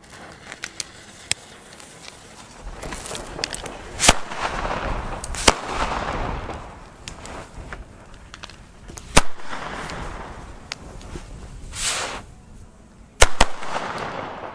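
El Gato Masclet Faller firecrackers, handmade Spanish masclets, set off one after another. Hissing fuses are followed by sharp bangs, about six in all, with two in quick succession near the end.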